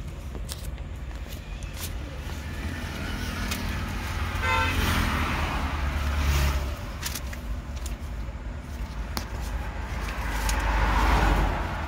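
Road traffic passing by, heard through an open car window over a steady low rumble: two vehicles swell past, and a horn gives a short toot about four and a half seconds in. A few light handling clicks.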